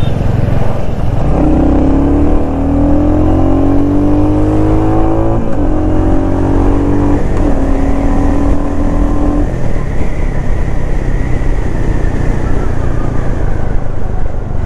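Royal Enfield Hunter 350's single-cylinder engine heard from the saddle while riding. It accelerates with the pitch rising, drops back at gear changes about five and a half and seven seconds in, then runs more evenly after about nine seconds.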